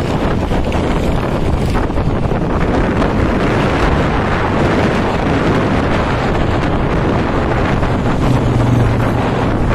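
Wind buffeting the microphone over the steady road and engine noise of a moving vehicle; a low engine hum swells briefly near the end.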